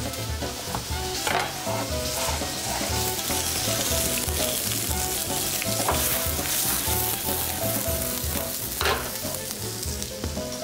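Cut vegetables (carrot, broccoli, cauliflower, mushroom and onion) sizzling steadily as they are stir-fried and tossed in a frying pan over a high flame, with a few sharp knocks of the pan.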